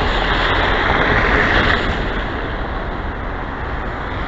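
Steady rushing noise of street traffic, with wind rumbling on the microphone.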